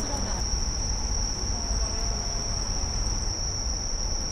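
Crickets singing in one steady, unbroken high-pitched trill, over a low rumble.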